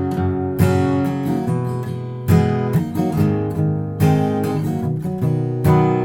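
Background music: strummed acoustic guitar, with a strum every half second or so.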